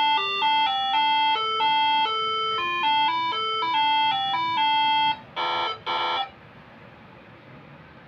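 Moreno Air Horn MS7 horn module playing its tune number 7: a quick electronic melody of stepped notes for about five seconds, ending in two short honks.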